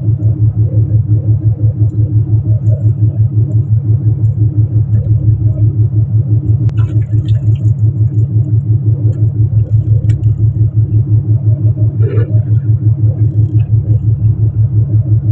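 Fishing boat's inboard engine running steadily, a loud low throb that pulses evenly. A few light knocks from gear on deck sound now and then.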